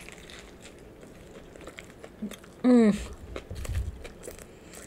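A person chewing a mouthful of cheeseburger, with soft wet mouth clicks and smacks. About two and a half seconds in comes a short closed-mouth hum that falls in pitch, the loudest sound here.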